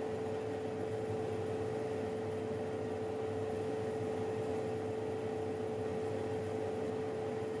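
Electric oven running while cookies bake: a steady hum with one clear tone over an even hiss.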